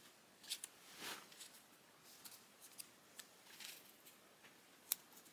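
Quiet handling noises: scattered small clicks and soft rustles, with one sharp click near the end.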